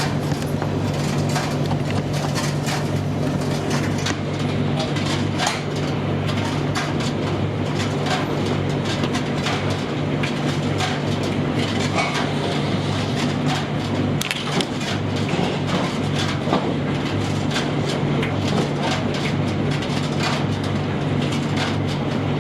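Gas tumble dryer running: a steady low hum from the drum motor and blower, with frequent light clicks and knocks as the load tumbles in the drum.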